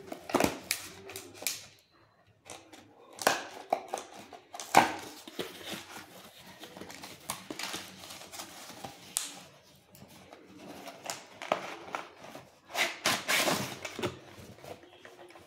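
Cardboard parcel being opened by hand: packing tape slit with a pen and torn free, cardboard flaps scraping and paper rustling, in irregular scrapes and rips.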